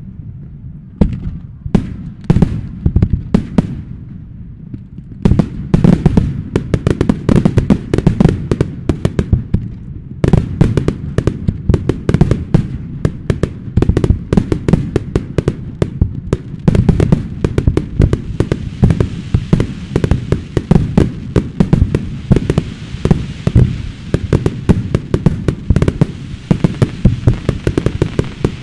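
Aerial fireworks display: a continuous barrage of shell bursts and bangs, sparser at first and then rapid and dense from about five seconds in. Past the middle, a steady higher hiss joins the bangs.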